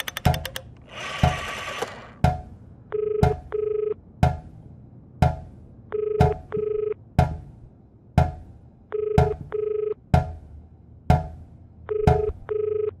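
Telephone ringback tone with the double 'brr-brr' ring: pairs of short buzzing tones every three seconds, heard on the line while the call goes unanswered. Beneath it a heavy knock repeats about once a second.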